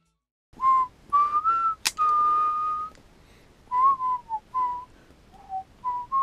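A person whistling a slow, simple tune in clear single notes, mostly short with one held for about a second. A sharp click sounds about two seconds in.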